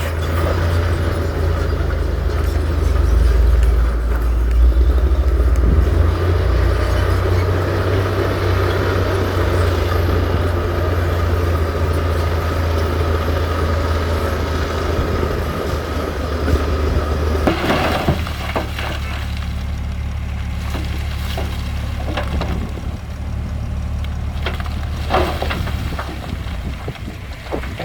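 Heavy diesel construction machinery running steadily under a dense rattling noise, which stops about 18 seconds in. After that the engine runs on with scattered knocks and clanks.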